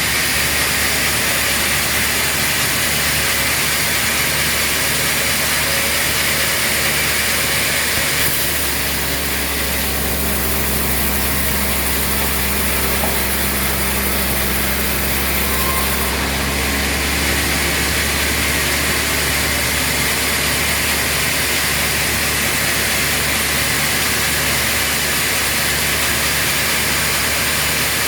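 Machinery running steadily with an engine-like hum. From about eight seconds in, the note changes for roughly eight seconds, with a clearer low hum and more high hiss, then settles back.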